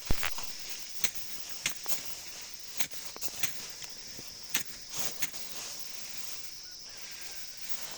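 Irregular sharp swishing cuts, roughly one every half second to second, typical of sickles cutting through rice stalks, over a steady high insect-like hum.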